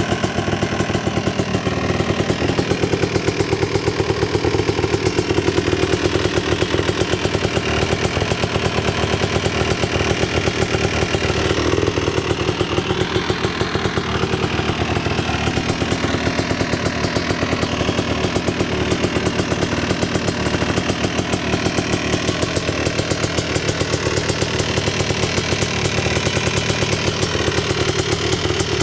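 Honda TRX250R's two-stroke single-cylinder engine idling steadily, with rapid even firing pulses, during its first heat cycle of break-in.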